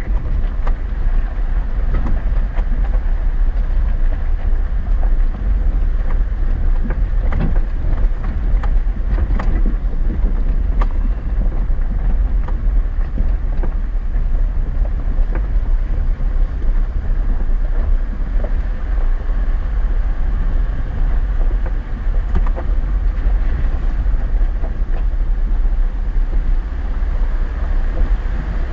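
Chevy Silverado 4x4 driving over a rough dirt road, heard from inside the cab: a steady low rumble of engine and tyres, with scattered knocks and rattles from the bumpy track, most of them in the first ten seconds or so.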